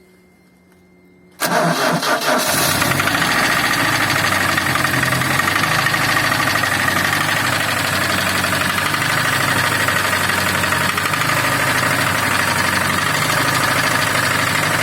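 GAZelle 2705 van engine starting about a second and a half in, catching almost at once, then running steadily at idle with the knock that the owner reports in the engine.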